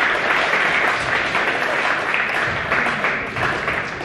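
Applause in a gymnasium: many hands clapping together, holding steady and easing off slightly near the end.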